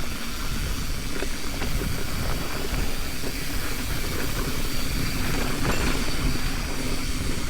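Mountain bike rolling fast down a rocky dirt trail: a steady rumble of tyres over dirt and rock, with wind rushing over the microphone.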